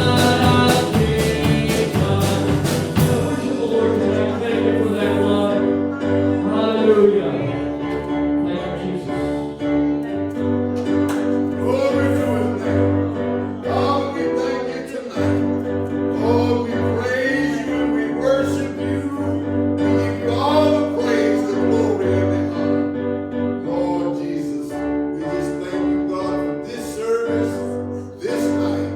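Church worship music with no speech: sustained chords under a wavering melody line, with a drum beat that is strongest in the first few seconds.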